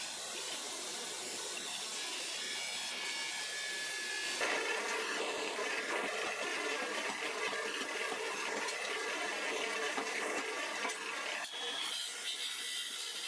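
Workshop power tools working a pale knife handle: a belt grinder's steady whir as the handle is held to its contact wheel, switching about four seconds in to a louder drill press boring through the handle, and near the end to a bench buffing wheel running against it.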